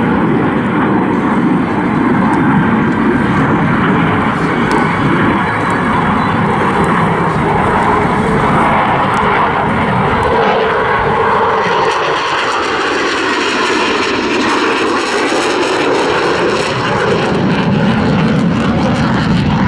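Eurofighter Typhoon's twin EJ200 turbofan engines running at high power in a loud, continuous jet roar. About twelve seconds in the low rumble thins and the roar takes on a shifting, whooshing quality.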